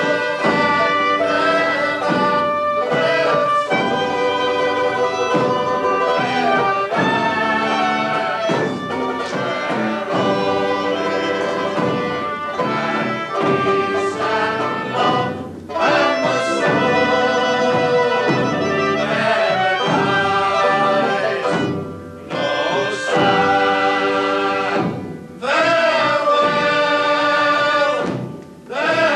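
Folk band with banjo accompanying voices singing a song in phrases, with short breaks between phrases near the end.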